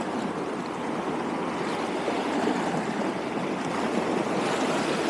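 Waves washing steadily against the shore, an even rushing noise with no single splashes standing out.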